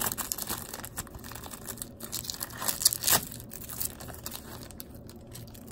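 Foil trading-card pack wrapper crinkling and crackling in the hands, in irregular bursts that are strongest near the start and around three seconds in, then fainter.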